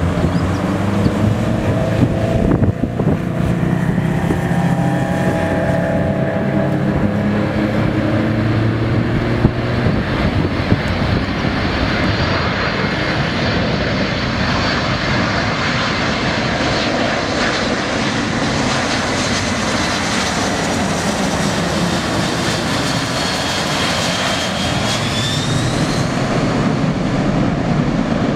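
Jet noise from the four turbofan engines of a Boeing C-17 Globemaster III flying low on approach: a loud, steady rush with low whining tones that slide in pitch over the first ten seconds, then a broader noise with a high whine that rises near the end.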